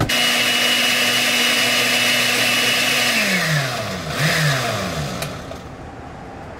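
Countertop jar blender blending a green smoothie. The motor runs steadily for about three seconds, then is switched off and spins down with a falling whine. A brief second pulse about four seconds in winds down again.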